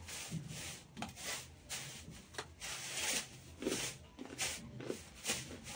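A person chewing a small, hard fried mini samosa close to the microphone: a string of irregular crisp crunches.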